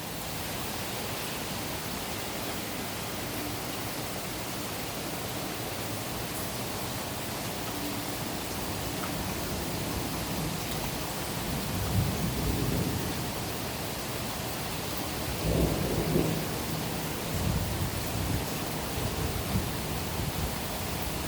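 Heavy rain falling steadily during a thunderstorm, with thunder rumbling in several low surges from a little past halfway through.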